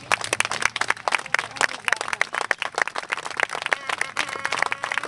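A small audience clapping: many separate hand claps close together, unevenly spaced.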